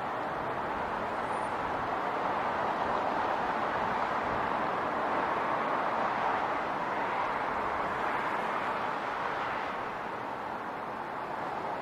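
City road traffic noise: a steady wash of passing vehicles that swells from about two seconds in and eases off near the end.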